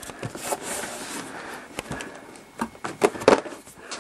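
Toy box packaging, cardboard and plastic, being handled and opened: rustling and scraping with a few sharp knocks and clicks in the second half.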